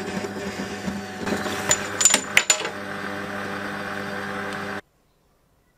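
Metal lathe running with a steady motor hum while the cutting tool works the spinning metal part. Between about one and a half and two and a half seconds in come a few sharp metallic clinks and a brief high ring. The sound cuts off suddenly about five seconds in.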